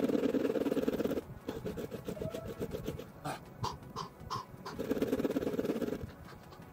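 Manual pocket chain saw rasping through a log in long back-and-forth pulls, three strokes with a short pause between the second and third, the cut going slowly and hard.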